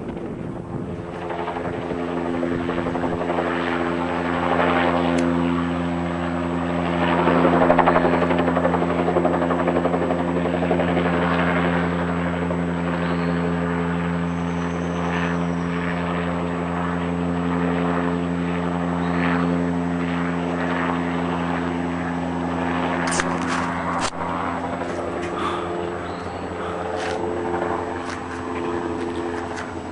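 Light single-rotor helicopter flying low overhead: a steady drone of rotor and engine that swells loudest about eight seconds in. A few sharp clicks come near the end.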